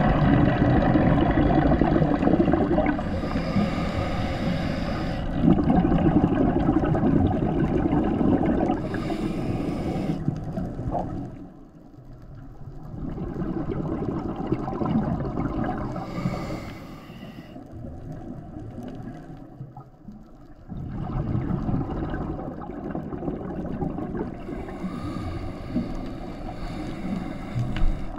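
Scuba diver's regulator breathing heard through an underwater camera housing: long noisy rushes of exhaled bubbles, broken twice by quieter pauses while inhaling, about twelve and nineteen seconds in.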